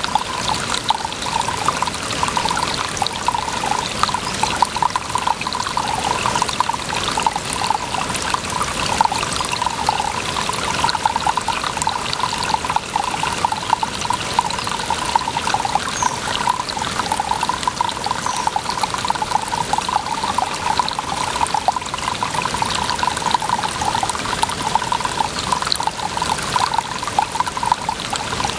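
Water running and trickling steadily, a continuous flickering splash with no pause.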